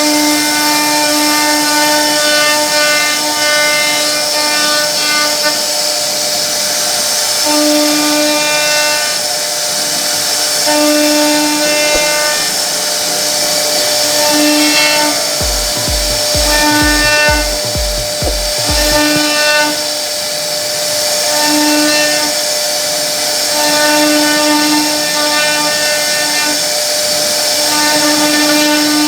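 CNC wood router carving a wooden board: a steady high spindle whine under several lower machine tones that switch on and off every second or two. About two-thirds of the way in there is a short run of low, evenly spaced pulses.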